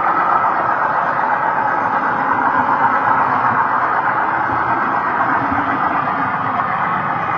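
HO-scale model train rolling along the track, heard from a camera riding on one of its wagons: a steady rolling noise of wheels on rails.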